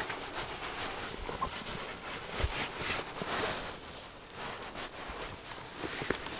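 Rustling and handling noises from winter clothing and hands working over the ice hole, with a few soft knocks.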